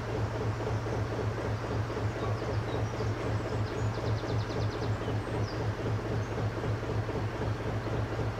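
Narrowboat's Petter McLaren B2 traditional diesel engine running steadily with an even, low beat. A bird twitters briefly near the middle.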